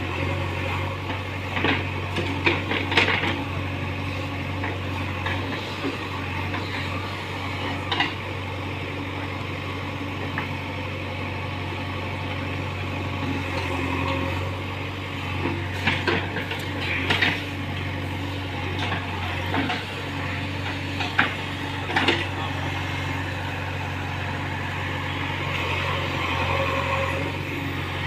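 JCB 3DX backhoe loader's diesel engine running steadily while it digs, with scattered sharp metallic clanks and knocks from the bucket and arm, several bunched around three seconds in and again from about sixteen to twenty-two seconds.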